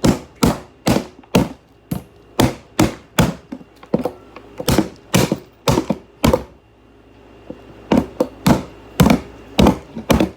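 A hammer striking a hair dryer over and over, about two blows a second, pausing briefly a little past the middle before the blows resume.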